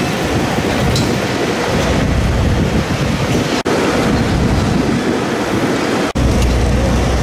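Wind noise on the camera microphone outdoors: a steady rushing noise with a heavy low rumble. It drops out for an instant twice, and the low rumble is stronger after the second break.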